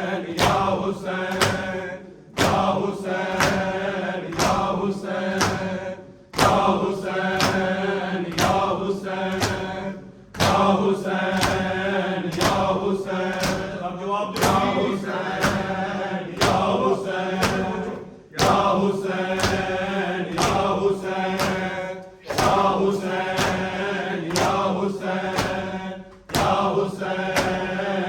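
A crowd chanting a mourning lament in unison, in phrases about four seconds long with a short break between each, over rhythmic matam chest-beating: sharp hand slaps on the chest at about two a second.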